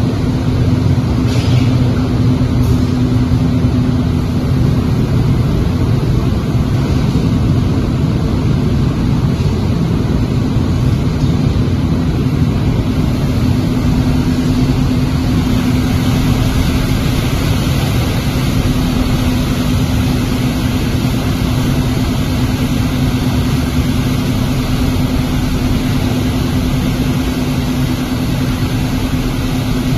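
Automotive glass tempering furnace line running: a steady, loud machine noise with a constant low hum.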